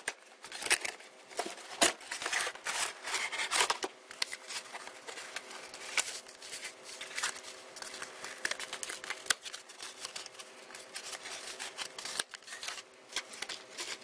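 Cardboard and plastic CPU packaging being handled: a close run of scrapes, rustles and sharp clicks as the box is opened, the cardboard tray slid out and the plastic clamshell handled, busiest in the first few seconds and sparser after.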